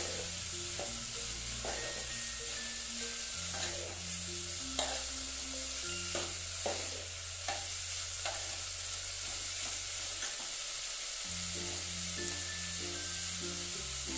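Moth beans frying in oil in an aluminium pot, sizzling steadily while a steel ladle stirs them, scraping and clicking against the pot many times.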